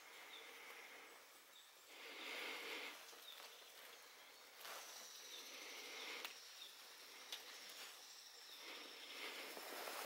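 Faint rustling of fingers handling a satsuki azalea's leaves and thin wired branches, in soft bursts every couple of seconds, with a few small clicks.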